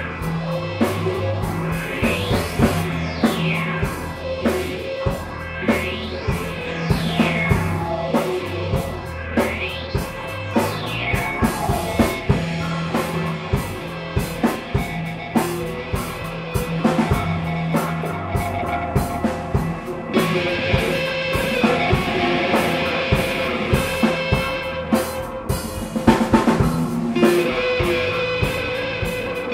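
Instrumental space rock played live by a band of drum kit, bass, keyboard and effects-laden guitars. Repeated rising and falling sweeps run through the first half, and the sound thickens in the upper range later on.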